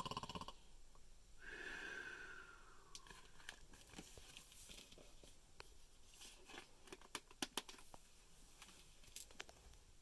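A man's imitation bear snore ends with a rasp about half a second in, followed by a softer breathy out-breath that falls in pitch. Then faint clicks and rustles of a picture book's pages being handled and turned.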